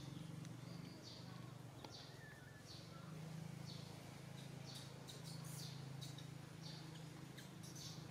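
Faint high chirps from small wild birds in the forest, repeating about once a second and coming faster in the second half, over a low steady hum.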